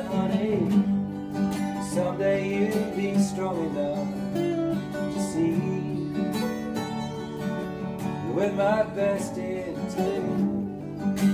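Three acoustic guitars played together in a folk song, with a man's voice singing a melody over them in a few phrases.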